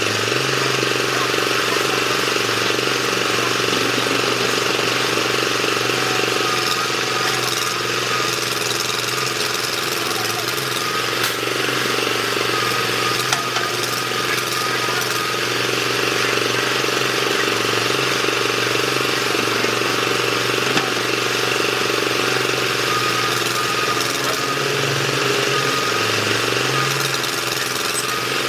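Excavator's diesel engine running steadily under working load, its low drone shifting slightly in pitch now and then as the load changes.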